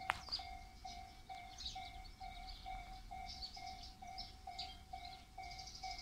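Japanese railway level-crossing alarm bell ringing steadily, about two strokes a second, warning that a train is approaching. Wind rumbles on the microphone, with high chirping over the top.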